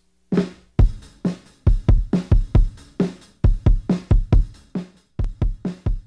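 Kick drum playing a rock beat, heard through its Neumann FET 47 kick microphone alone, at the beat's original full recording speed. The deep thuds come in an uneven, repeating groove and carry a little distortion from a tape-saturation plugin.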